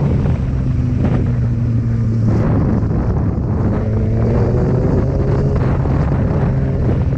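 Kawasaki Ninja ZX-6R sportbike's inline-four engine running at part throttle while riding, with wind buffeting the microphone. The engine note breaks briefly about two and a half seconds in, then climbs gently in pitch.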